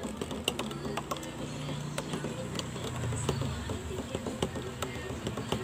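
Metal spoon stirring powdered taro milk-tea mix into water in a plastic cup until the powder dissolves, clinking against the cup in quick irregular clicks.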